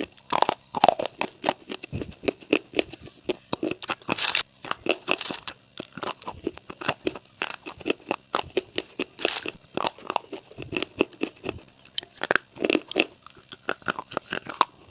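Crunchy food being bitten and chewed, with an irregular run of close, sharp crunches.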